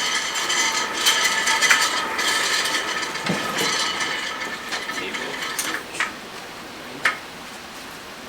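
A small mechanism running with a steady, high-pitched whirring ratchet, fading out about five seconds in, followed by two sharp clicks.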